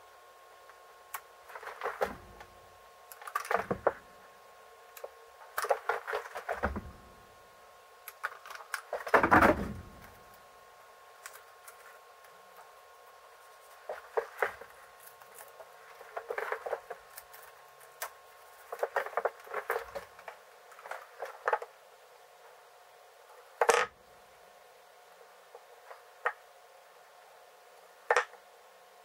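Irregular knocks, clacks and a few heavier thumps of wood pieces and tools being handled on a workbench, the heaviest thump about nine seconds in and a sharp clack about 24 seconds in, over a faint steady hum.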